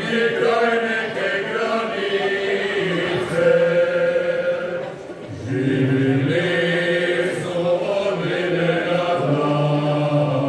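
Male folk choir of about eight men singing a Slavonian folk song unaccompanied in several parts, on long held notes, with a brief break for breath about five seconds in.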